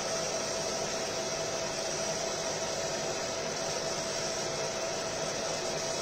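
Fiber laser marking machine running while engraving: a steady fan-like hiss with one constant whining tone, unchanging throughout.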